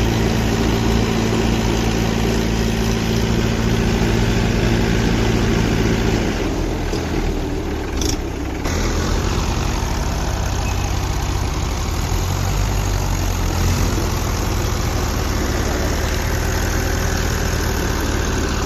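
Two Mahindra 475 four-cylinder diesel tractor engines running hard under load as they pull against each other in a tug-of-war. The steady engine note shifts about six seconds in, with a brief break near eight seconds.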